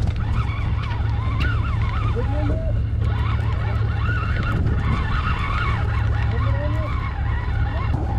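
Steady low drone of a fishing boat's engine running. Scattered, wavering higher calls or distant voices come and go over it.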